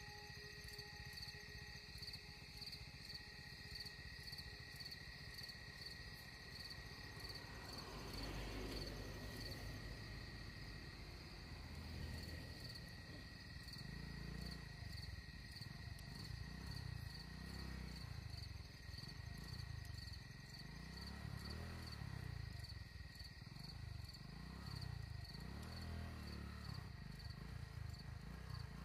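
Insects chirping in a steady, high, pulsing drone. A passing lorry adds a rumble about eight seconds in, and low rumbling swells come and go through the second half.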